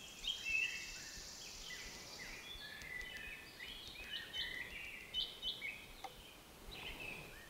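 Several songbirds singing, with short whistled phrases and chirps overlapping throughout, and a high, thin trill in the first two seconds or so.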